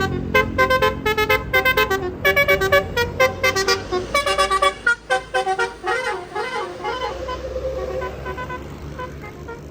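Bus telolet basuri musical air horn playing a fast melody of short notes over the bus's engine. About halfway the notes give way to wavering, sliding tones that fade near the end.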